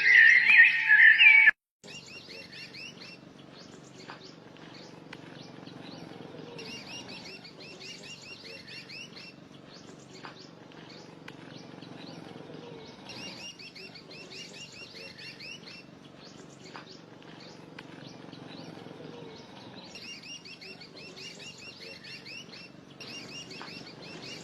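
Music cuts off suddenly about a second and a half in. Birds chirping follow: clusters of rapid high chirps that come back every five or six seconds over a steady low hum.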